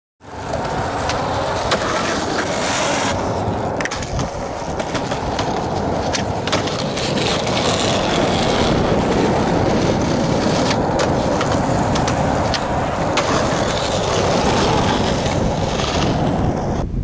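Skateboard wheels rolling over rough asphalt: a steady rolling noise, with sharp clicks here and there.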